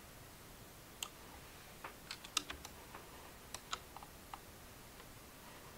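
Faint, irregular clicks from a computer keyboard and mouse, about a dozen of them spread between one and four and a half seconds in.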